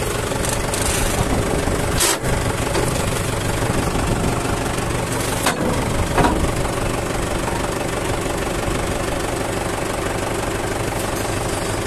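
Sonalika Tiger DI 55 tractor's diesel engine idling steadily, with two short sharp knocks about two and five and a half seconds in.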